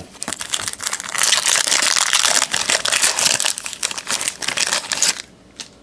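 Foil trading-card pack wrapper crinkling as it is torn open and handled. The dense crackle is loudest from about one second in and stops near the end.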